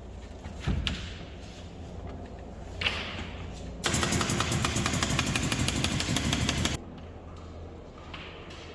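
A thud, then a power tool running in one burst of about three seconds with a fast, even rattle, cutting off suddenly.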